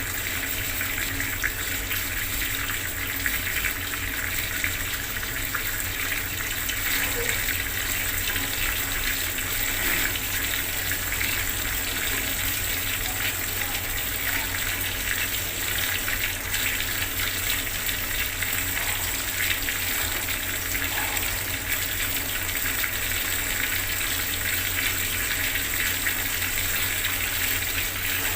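Bathroom water tap running steadily, a constant gushing stream of water in a small tiled room.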